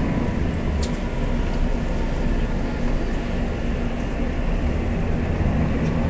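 Steady low engine drone and road noise heard inside a moving bus.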